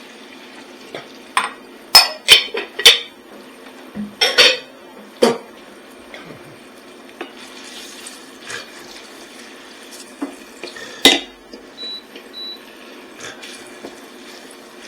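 A cooking utensil clattering against a pan as celery is tipped in with onions and stirred into melted butter: a run of sharp knocks in the first five seconds and one more loud knock about eleven seconds in.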